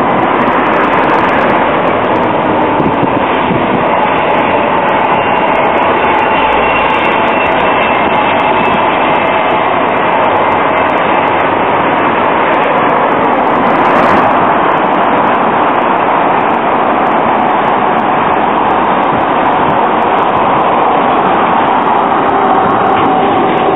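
Croydon Tramlink tram running past on street track amid road traffic: a loud, steady noise of wheels and traffic with a faint, steady whine.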